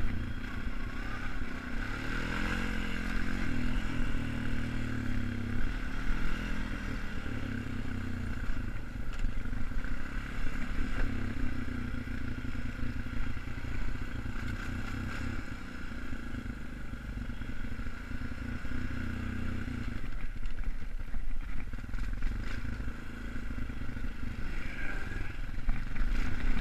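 A 2002 Honda Foreman 450 ATV's single-cylinder four-stroke engine runs as the quad is ridden along a snowy trail. The engine note rises and falls with the throttle and eases off for a moment about three-quarters of the way through. Scattered clatter comes from the machine over rough ground.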